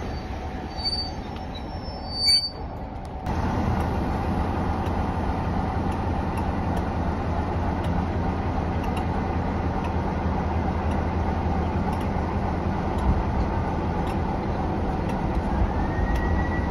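Class 45 'Peak' diesel locomotive's Sulzer twin-bank 12-cylinder engine opening up to haul the train away, heard from a carriage window. A brief shrill tone comes first, then about three seconds in the engine sound jumps suddenly to a steady heavy drone that holds as the train moves off.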